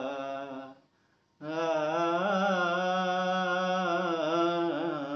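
A man singing unaccompanied, holding long wavering vowel notes. One held note fades out just under a second in, and after a short silence a new long note of about four seconds starts, dying away near the end.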